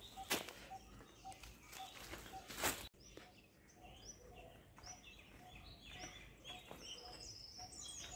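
Footsteps crunching on dry fallen leaves for the first three seconds, cut off suddenly, then birds chirping. A short low note repeats about twice a second throughout.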